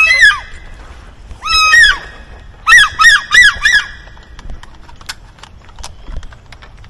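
Wood duck squeals: one loud rising-and-falling call at the start, another about a second and a half later, then a quick run of four, followed by a few faint ticks.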